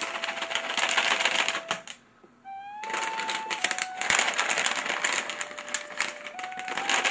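Rapid crinkling and rustling of plastic cat-treat bags handled by a cat, over background music with long flute-like notes. The rustling drops out briefly about two seconds in, then resumes.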